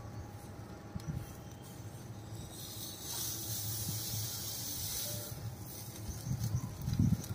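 Soft hiss from inside a hot pit tandoor as skewered marinated beef is lowered into it. The hiss swells a couple of seconds in and eases off near the end, when a few low knocks of the skewers and meat being handled come in.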